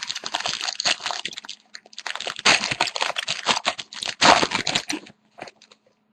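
Wrapper of a hockey card pack crinkling and crackling as it is torn open by hand, a dense run of crackles that stops about five seconds in, followed by a few brief rustles.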